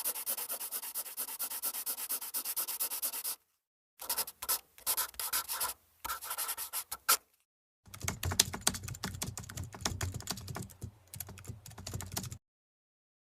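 Rapid clicking and tapping in three separate runs with short silences between them. The first run is evenly paced, the second is irregular with a few sharper clicks, and the last has deeper, heavier taps.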